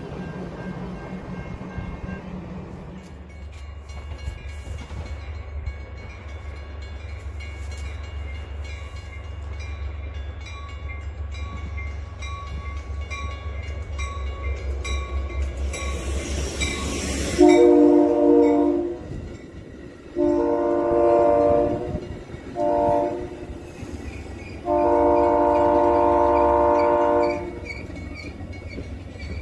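Metra commuter train approaching with a low rumble, then sounding its multi-note air horn in the grade-crossing pattern: long, long, short, long, the last blast about two and a half seconds.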